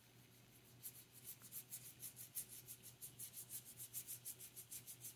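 Faint, quick strokes of a paintbrush's bristles scratching ink across a paper swatch card, about six strokes a second, starting about a second in.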